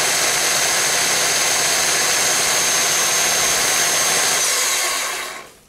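Corded electric drill running steadily at about 1,070 rpm on reduced voltage from a variable voltage regulator, a motor hum with a faint high whine. Near the end its pitch drops and it winds down to a stop as the regulator knob is turned down.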